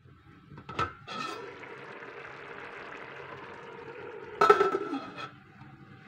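Metal pan lid clanks against the pan as it is lifted, and a steady hiss of cooking comes from the open pan. About four and a half seconds in the lid clanks down again with a short ring, and the hiss turns quieter.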